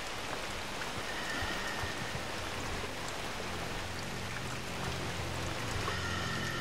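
Forest ambience: a steady, even hiss like rain or running water, with a faint high whistle about a second in and again near the end.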